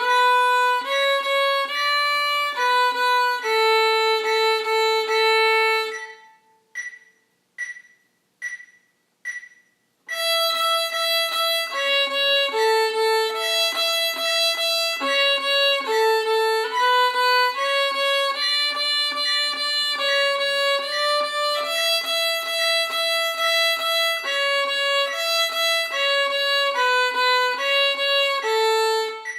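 A simple melody of held single notes in a violin tone stops about six seconds in. Four evenly spaced metronome clicks, at about 72 beats a minute, count it back in, and the tune resumes about ten seconds in.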